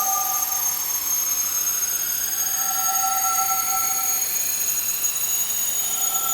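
Synthesized sci-fi spaceship engine sound effect: a steady high whine over hiss, with two slowly gliding tones crossing, one falling and one rising. A two-note alarm-like tone sounds briefly at the start and again for about a second and a half in the middle and near the end.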